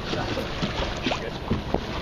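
Water sloshing and slapping against the hull of a small boat drifting at sea, with wind on the microphone: a steady noise broken by irregular splashes.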